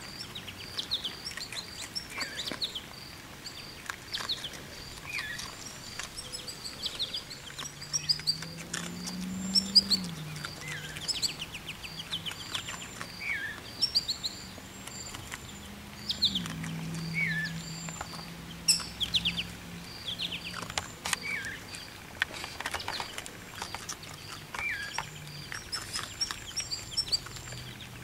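Baby raccoons chirping and twittering: short high calls that slide downward in pitch, repeated over and over, with scattered small clicks among them.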